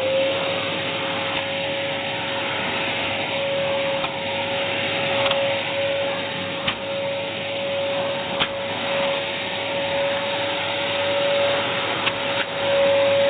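AEG Airmax AMM6216 2100 W vacuum cleaner running steadily at full speed, with a constant motor whine at one steady pitch over a rushing air noise. A few faint ticks come through now and then.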